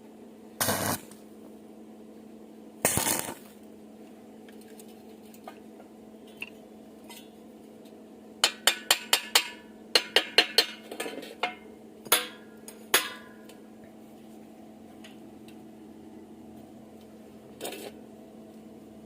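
Metal clinking and tapping on thin steel angle iron: a quick run of sharp ringing taps, about five a second, in the middle, and a few short harsher bursts before and after. A steady low hum runs underneath.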